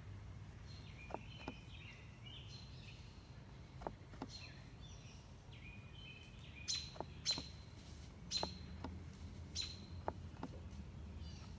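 Faint birds chirping in short repeated calls, mixed with brief clicks as the buttons of a solar charge controller's remote meter are pressed to scroll its screens, about a dozen clicks in all.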